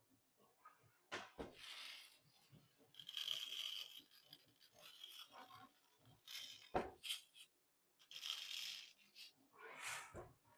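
Handling noise from desiccant beads and plastic desiccant boxes: several short bursts of rattling and rustling, with a few soft knocks.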